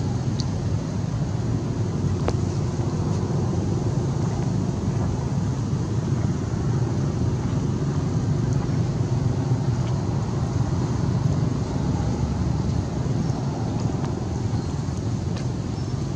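Steady low background rumble outdoors, even throughout, with a few faint ticks and no distinct event.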